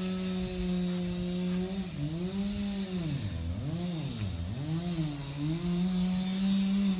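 An engine running steadily with a high, even note; a couple of seconds in, its pitch sags and recovers about four times in a row, as if taking load in pulls, then holds steady again.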